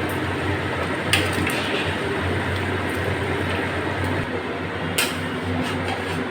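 Chicken pieces being put into boiling gravy in a pan, with wet, squishing sounds and a few sharp clinks of a spoon against the pan, about a second in and again near five seconds, over a steady background hum.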